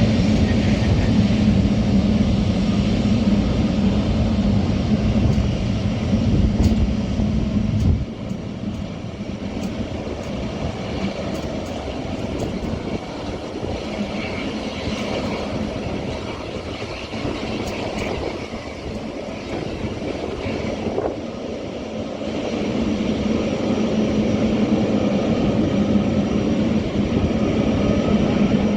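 Jet engines of a Boeing airliner arriving, a steady loud roar with a low hum. The roar drops abruptly about eight seconds in and builds again from about twenty-two seconds.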